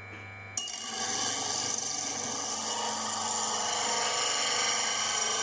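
Home-made bench grinder driven by an old washing-machine motor, humming as it spins. About half a second in, a steel axe blade is pressed to the grinding wheel and a steady, hissing grind starts and carries on.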